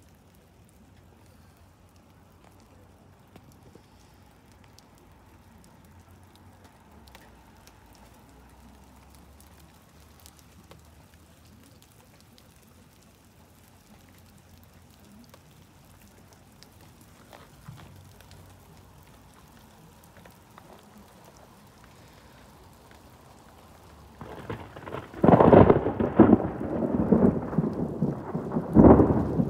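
A loud crash of thunder breaks out about 25 seconds in after a long quiet stretch, and rolls on rumbling, with a second loud peak near the end.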